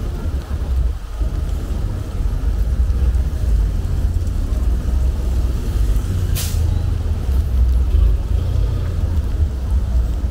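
Steady low wind rumble on the microphone over surf and rain on the beach, with one short hiss about six seconds in.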